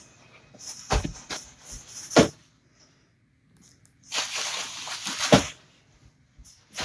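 A few sharp knocks and bumps, then about a second and a half of rustling that ends in a hard knock, with one more knock near the end: handling noise as a phone camera is swung round.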